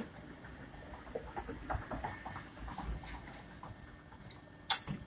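Tow truck hookup gear giving scattered light clinks and knocks while a car is hooked up, over faint street traffic noise, with one sharp click near the end.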